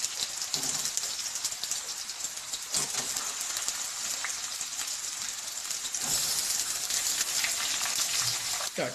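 Boiled potatoes frying in hot ghee in a pan: a steady sizzle full of fine crackling, a little louder from about six seconds in.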